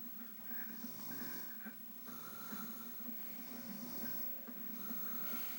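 Snoring: a steady low buzzing rasp with a breath-like hiss recurring about every second and a half.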